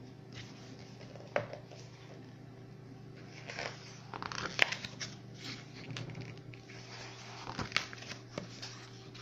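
Pages of a book being turned one after another: several papery rustles and swishes, each with a sharp flick or click of the sheet, the loudest in the middle and again near the end.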